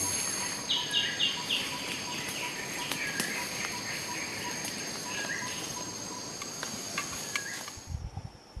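Forest ambience: steady high-pitched insect chirring with short bird calls, a run of four quick notes about a second in and a few more later. A few low thumps come near the end.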